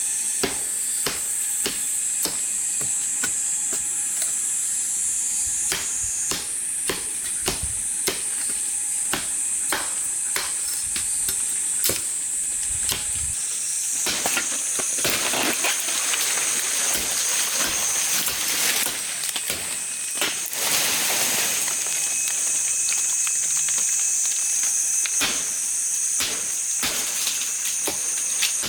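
Steady high-pitched buzzing of insects, shifting slightly in pitch a few times, with irregular sharp clicks and knocks over it.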